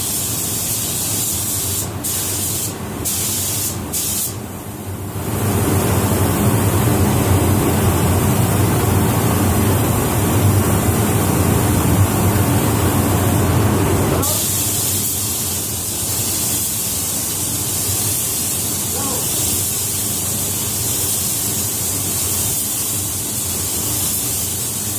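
Paint spray gun hissing as it sprays a coat of clearcoat, with a few short breaks in the first five seconds as the trigger is let off and squeezed again. A louder low rushing of air runs from about five seconds in until it stops abruptly near the middle, after which the steady spray hiss carries on.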